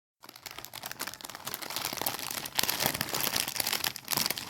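Crinkling of a bag of Oreo-flavoured Lay's chips being handled, a dense run of crackles that gets louder about two and a half seconds in.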